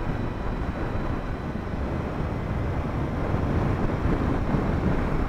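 Wind rushing over the action camera's microphone as a Suzuki GSX650F motorcycle rides along a road, with engine and road noise beneath. The rush swells a little after about three seconds.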